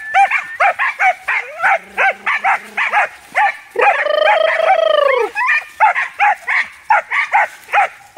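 American foxhound hunting dogs barking rapidly, about three to four barks a second, with one long drawn-out bay about four seconds in that drops in pitch at its end. The dogs are worked up at the sight of a caught armadillo.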